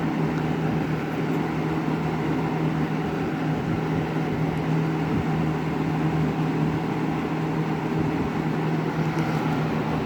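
Lakewood S223 20-inch box fan running on high speed: a steady rush of air over a constant low motor hum, with no rattle to be heard.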